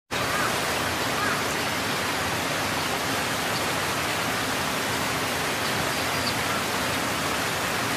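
Steady rushing noise of swollen floodwater flowing past.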